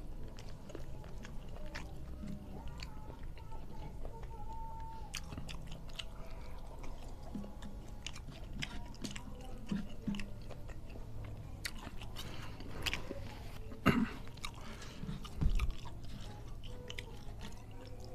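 A person chewing mouthfuls of rice eaten by hand, with many small mouth clicks, over a low steady hum. Two louder thumps come about a second and a half apart in the last third.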